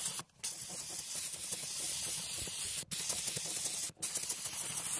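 Karcher SC2 steam cleaner jetting steam from its hand-gun nozzle: a steady loud hiss that cuts out for a split second three times, near the start, about three seconds in and about four seconds in, as the trigger is let go and pressed again.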